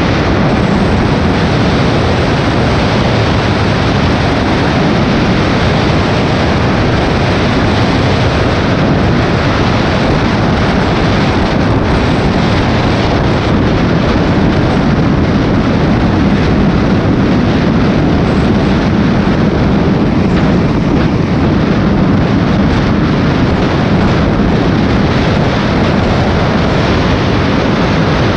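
Honda VTX motorcycle's V-twin engine running at a steady road speed, mixed with loud, steady wind rush on the microphone.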